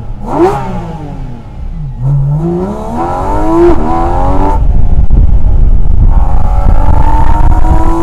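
Porsche 718 Cayman GT4 RS's naturally aspirated 4.0-litre flat-six under hard acceleration. A quick rev blip at the start falls away, then from about two seconds in the revs climb steeply to a sharp upshift near four seconds. A longer, slower pull in a higher gear runs through the end.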